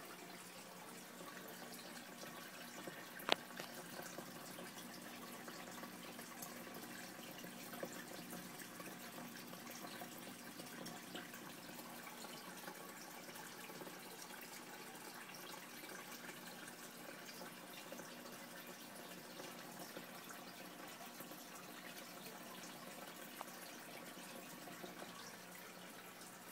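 Steady trickle of water from an aquarium filter running into a fish tank, over a faint steady hum, with one sharp click about three seconds in.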